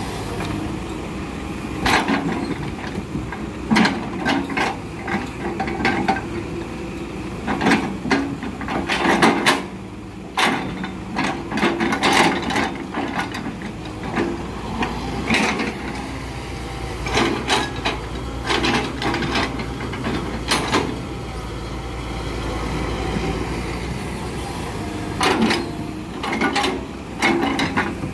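Hitachi Zaxis excavator's diesel engine running steadily while its grapple drops and shifts rubber-wood logs onto a truck bed, giving repeated sharp wooden knocks and thuds, clustered in runs, as the logs land and strike one another.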